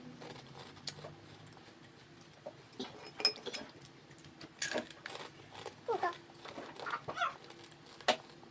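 Scattered sharp clicks and taps of eating: utensils and food containers knocking while food is eaten.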